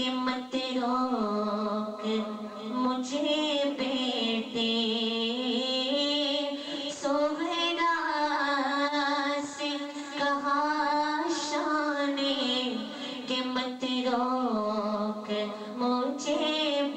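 A young man's voice singing unaccompanied into a microphone, in long held melodic lines with wavering ornaments.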